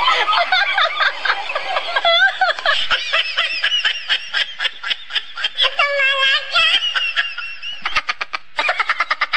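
High-pitched laughing, breaking into fast, rhythmic ha-ha-ha runs about three seconds in and again near the end.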